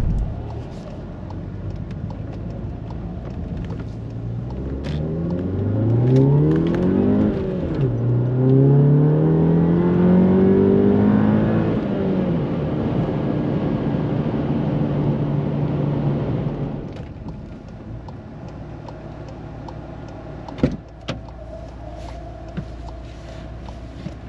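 Mk7 Volkswagen GTI's turbocharged four-cylinder with a Baun Performance exhaust, under hard acceleration. The engine note climbs, drops at an upshift about seven seconds in, and climbs again. It then falls as the throttle lifts, holds a steady cruise, and goes quieter for the last several seconds.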